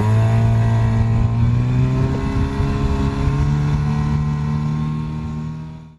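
A motor vehicle's engine running steadily, its pitch slowly rising as it speeds up, then fading out and cutting off near the end.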